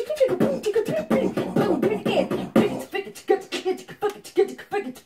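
Beatboxing as a conversation: rapid mouth-made clicks and drum hits mixed with short pitched vocal sounds, traded between a man and a woman.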